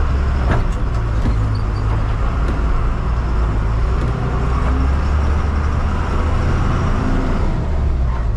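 Tata 1613c container truck's diesel engine running steadily while driving, a deep continuous rumble with road noise, heard from inside the cab.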